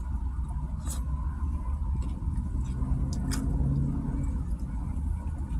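Steady low rumble of an idling car heard inside its cabin, with a few faint clicks while a taco is chewed and a short low hum about three seconds in.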